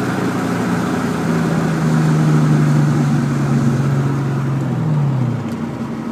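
2001 Mustang GT's 4.6-litre V8 running under load. Its note climbs slightly about a second in and holds, then drops away about five seconds in and settles lower.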